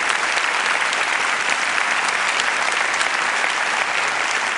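Large theatre audience applauding, many hands clapping in a dense, steady wash.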